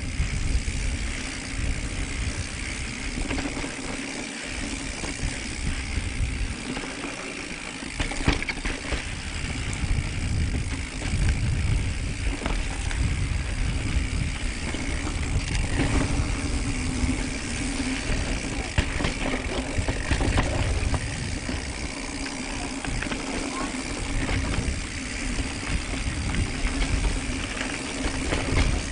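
Mountain bike being ridden over rocky singletrack: wind buffets the microphone with an uneven low rumble, tyres roll over rock and dirt, and the bike knocks and rattles sharply now and then as it hits rocks.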